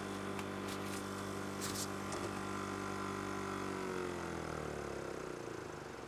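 W126 Mercedes central-locking vacuum pump's electric motor running with a steady hum, then spinning down with a falling pitch and stopping about five seconds in, switching off on its own. It is producing neither suction nor pressure at its tube, and the owner suspects the pump may be faulty.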